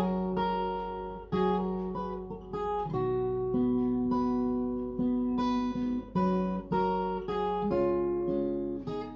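Acoustic guitar strumming slow chords, each struck and left to ring before the next.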